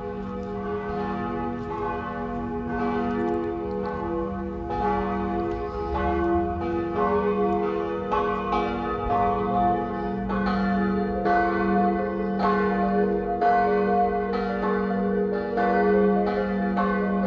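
Church bells ringing in a steady peal, a new strike roughly every three quarters of a second, the tones ringing on and overlapping.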